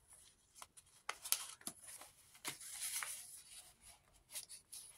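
Paper rustling and crinkling as the pages and a paper tag of a handmade junk journal are handled and slid into a pocket: light, irregular rustles with a few sharper crinkles.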